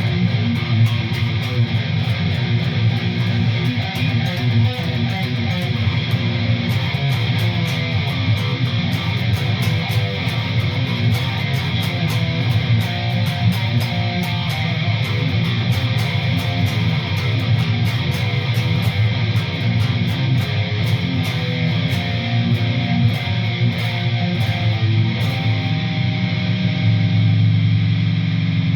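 ESP LTD Arrow Black Metal electric guitar with a single EMG humbucker, played through a Line 6 HD500X and Rocktron Velocity 300 into a Laney Ironheart cab on a high-gain distorted rhythm tone. Fast-picked metal riffing, ending on a held low chord near the end.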